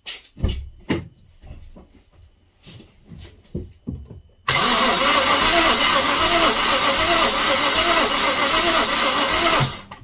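A few knocks and clicks, then about four and a half seconds in a BMW N52 inline-six is cranked by its starter motor for about five seconds, loud and even, cutting off suddenly near the end. This is a compression test on cylinder six, which shows no compression.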